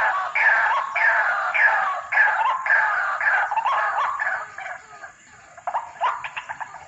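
White-breasted waterhen (ruak-ruak) calling: a rapid series of loud, repeated downward-sliding notes, nearly two a second, that weaken after about four seconds into scattered fainter notes.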